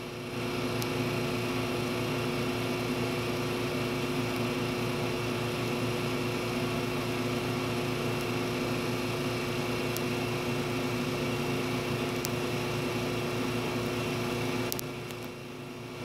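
Generac standby generator running steadily at speed in its cool-down run after the load has transferred back to utility power: an even hum that eases off slightly near the end.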